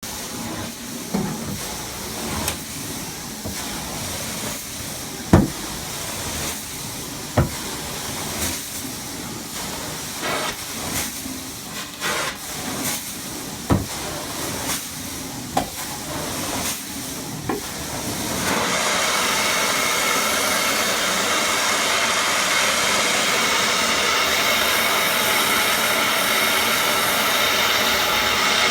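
Steam carpet-cleaning equipment: a steady hiss broken by scattered knocks and clicks, then about two-thirds of the way through a louder motor starts and runs steadily with a high whine.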